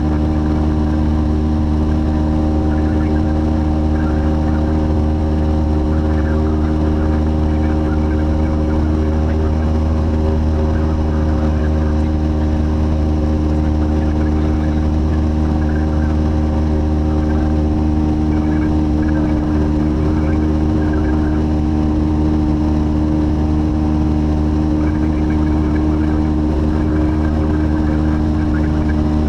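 Light aircraft's piston engine and propeller running steadily in flight, a constant, unchanging drone.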